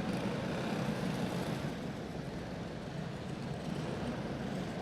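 Quarter-midget race cars' small single-cylinder clone engines running slowly under caution, a steady rough drone.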